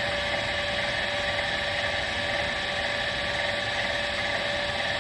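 1950 Farmall C's electric starter cranking the four-cylinder engine with a steady moan. The engine does not catch, too cold to start at about 10 °F.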